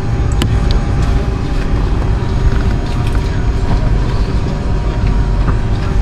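Steady low rumble inside the cabin of a Boeing 757-200 on the ground before take-off, with a faint steady hum over it and a sharp click about half a second in.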